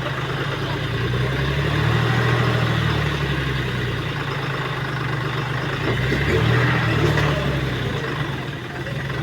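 An engine running steadily with a low drone, swelling a little about two seconds in and again around six to seven seconds.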